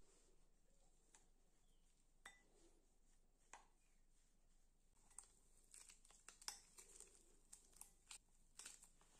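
Metal spoon faintly clinking and scraping against a glass bowl while stirring crushed chocolate biscuit crumbs and cream into a thick paste: a few scattered clicks at first, then quicker, closer ones in the second half.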